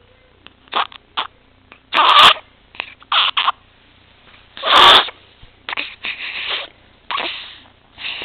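A six-week-old baby's irregular, noisy gasping breaths, two of them much louder, about two and five seconds in. This is the obstructed breathing of an infant with laryngomalacia and tracheomalacia.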